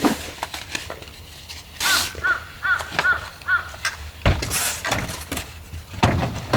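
A bird gives about four short calls in quick succession, a little over two seconds in, among sharp clicks and knocks and bursts of rustling.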